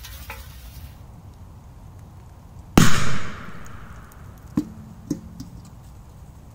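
A P2000 firecracker going off under a metal milk can: one sharp bang about three seconds in, with a short fading tail, a blast the shooter found weaker than expected. Two small knocks follow about two seconds later.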